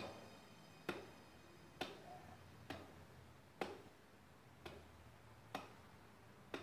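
Faint, sharp ticks at a fairly even pace of about one a second, eight in all.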